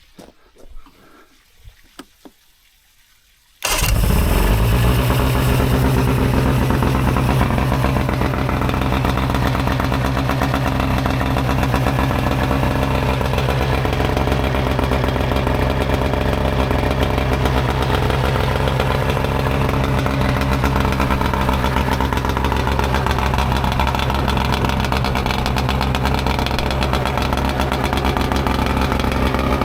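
Mercury 115 outboard motor on flushing muffs starting: it catches suddenly about four seconds in and then runs steadily, its freed throttle linkage no longer sticking.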